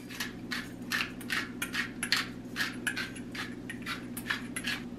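Hand-twisted pepper grinder cracking peppercorns: a steady run of dry crunching clicks, about five or six a second, over a steady low hum.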